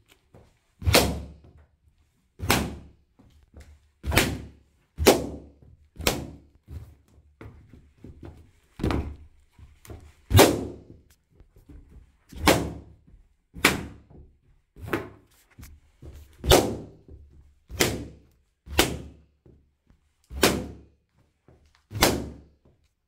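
Latex balloons bursting one after another under the studs of football boots: about fifteen sharp, loud bangs, roughly one to one and a half seconds apart, with softer knocks of the boots on the carpet between them.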